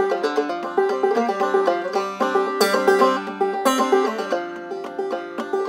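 Banjo played clawhammer style, a steady run of plucked notes over ringing open strings, with two sharper, brighter strokes about halfway through.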